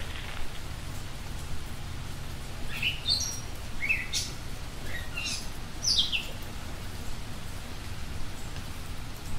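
Wild bird calls played back slowed down four times: a cluster of short high notes, several sweeping down in pitch, a few seconds in, over a steady low rumble.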